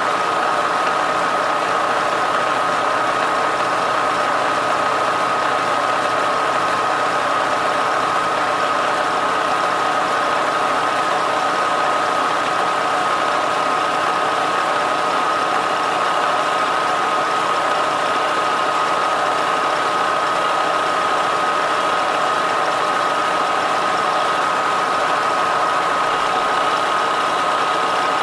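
Milling machine running in reverse, with a steady high whine, while a flipped-around single-point cutter turns a round boss on a square metal block.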